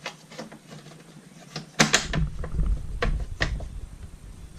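Plastic exhaust plate of a Rainbow vacuum cleaner being fitted and snapped into place. A few light plastic clicks, then a loud double snap about two seconds in with handling knocks, and two more clicks a second or so later.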